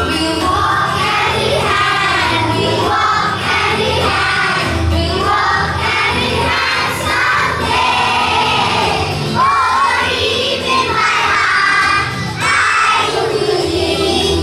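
A song with a steady beat, sung by a group of children.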